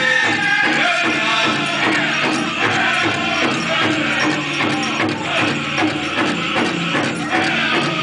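Powwow drum group singing a Grand Entry song in high-pitched voices over a steady beat on a big drum, with the jingling of dancers' bells and jingles.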